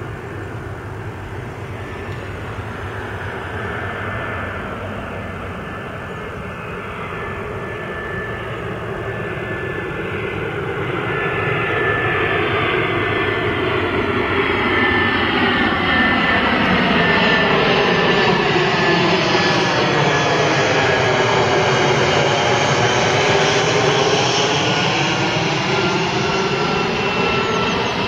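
Airbus A320-family airliner on final approach with gear down, its twin jet engines running with a steady high fan whine. The sound grows louder as it comes in and passes low overhead, with a sweeping, phasing tone as it goes over, then begins to ease slightly as it moves away.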